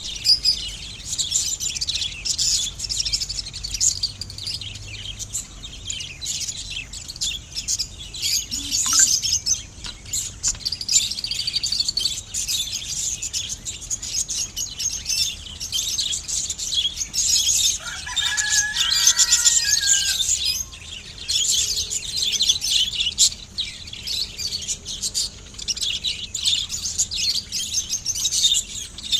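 Budgerigars chirping and chattering without pause in a dense stream of high-pitched chirps, with a lower, clearer call standing out for a couple of seconds about two-thirds of the way through.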